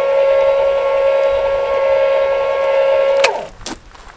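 Lippert electric tongue jack motor running with a steady whine as it lowers the trailer tongue, then stopping about three seconds in, its pitch falling briefly as it winds down, followed by a couple of sharp clicks.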